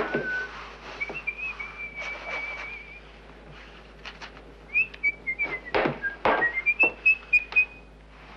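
A man whistling a wandering tune in short phrases, with a run of sharp knocks near the end.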